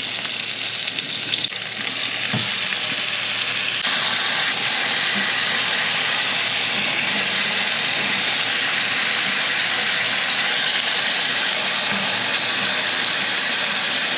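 Italian turkey sausage, onion and garlic frying in olive oil in a cast iron skillet: a steady sizzle that gets louder about four seconds in.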